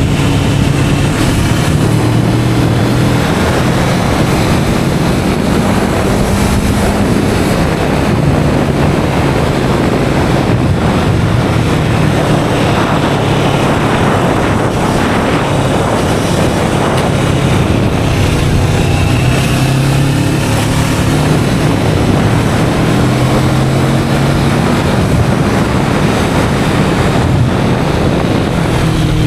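Kawasaki Vulcan S 650's stock parallel-twin engine running under way, its note rising and falling a few times, heavily buffeted by wind noise on the action camera's built-in microphone.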